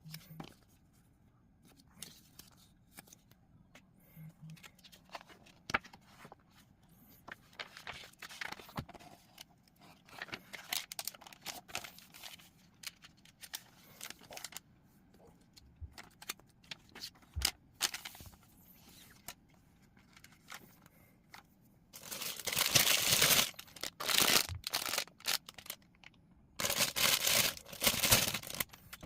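Plastic LEGO parts bags being handled and torn open, crinkling. Scattered light clicks and short rustles at first, then loud, continuous crinkling in two stretches over the last seven seconds.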